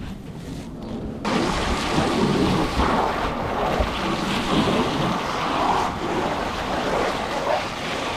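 Water spray hitting a welding rig, starting suddenly about a second in as a loud rushing splash that surges and shifts as the spray moves.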